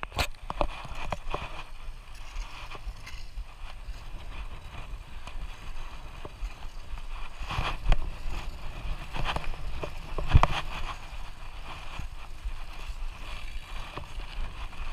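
Wheels rolling over an asphalt road, with wind buffeting the microphone: a steady low rumble with scattered rattles and two louder knocks about eight and ten seconds in.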